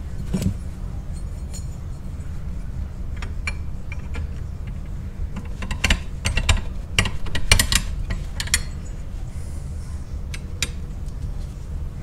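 Metal clutch-pedal assembly parts and washers clinking and clicking as they are handled and fitted together. There are scattered sharp clicks, with a run of several close together in the middle, over a steady low hum.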